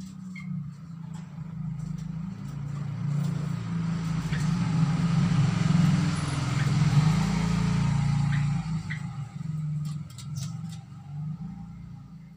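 A motor vehicle passing by, its engine growing louder to a peak about halfway through and fading away, over a steady low hum.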